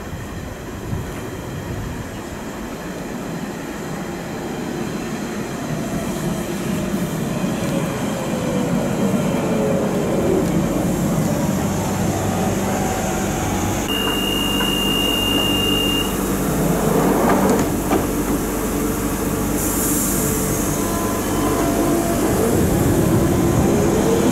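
London Underground Central Line 1992 tube stock train running in along the platform, growing louder as it nears, its motor whine falling in pitch over the first ten seconds and rising again near the end. A short steady high tone sounds about halfway, and a brief hiss follows some six seconds later.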